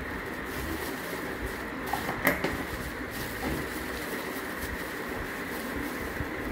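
Plastic bubble wrap rustling and crinkling as it is handled, with one sharper crackle about two seconds in, over a steady background hiss.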